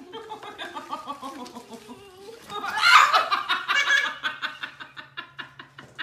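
A person laughing hard: a string of short, rhythmic ha-ha pulses that grows to its loudest about three seconds in, then tapers off in quick, fading bursts.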